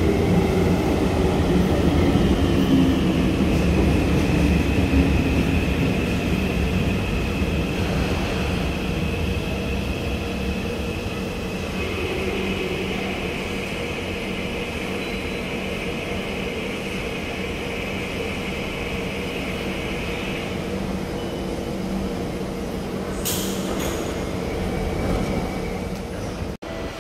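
SMRT C151 metro train pulling into a station and slowing to a stop: a motor whine falls in pitch as it slows, with a steady high tone that stops about 20 seconds in. A short hiss follows a few seconds before the end.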